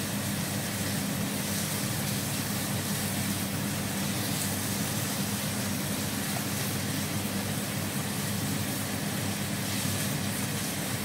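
Chilli-paste sauce sizzling steadily in a pan on an induction cooker, over a steady low hum. It is being cooked down until thick, with the oil rising to the surface.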